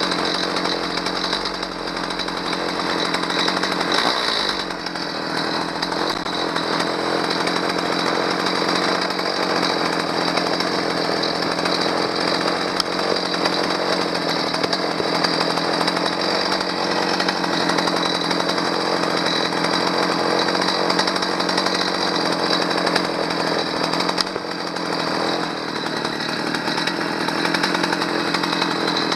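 Stihl 029 two-stroke chainsaw engine running steadily. It keeps running because its broken choke/stop lever can no longer switch it off.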